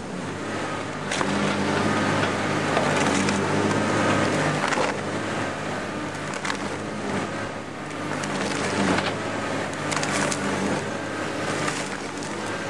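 Badger shear shredder's rotating hooked cutters chewing palm tree trunks, roots and fronds: a steady machine drone with irregular, repeated cracking and splintering of wood.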